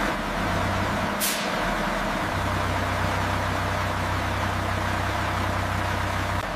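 A heavy military vehicle running while stationary: a steady airy hiss over a low hum, with a brief sharper hiss of air about a second in.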